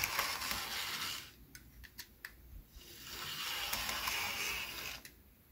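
Brass OO gauge GWR 8750 pannier tank model locomotive running at half throttle, its motor and gearbox whirring. The whirr fades out about a second in, leaving a few faint clicks. It returns from about three seconds in and then cuts off suddenly near the end.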